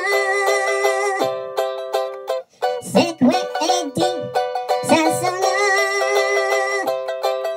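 Ukulele strummed in a steady rhythm with a man singing over it, holding a long note twice.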